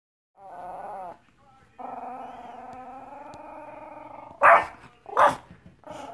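Small dog growling in a long steady rumble, then barking twice loudly about four and a half seconds in and once more softly near the end before going back to growling: an alert at a cat seen outside the window.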